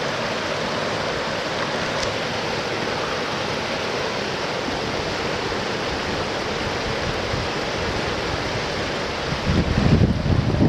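Mountain river water rushing through a rapid between boulders, a steady hiss. About nine seconds in, wind buffeting the microphone adds a louder, uneven low rumble.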